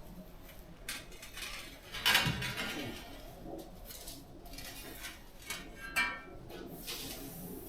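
Hard clinks and knocks of brick and oven parts being handled while an old masonry wood-burning oven is dismantled: scattered light clatter, with two louder knocks about two seconds in and near the six-second mark, the second ringing briefly.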